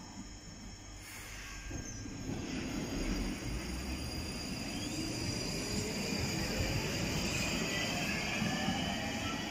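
London Underground Northern Line 1995-stock train pulling out of the platform. A low rumble builds after a second or two, and the traction motors' whine rises steadily in pitch as the train gathers speed.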